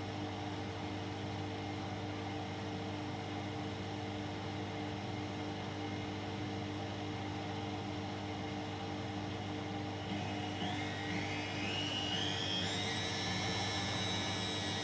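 Candy washing machine in its spin cycle, its motor giving a steady hum. From about ten seconds in, a whine rises in pitch as the drum speeds up, then levels off near the end.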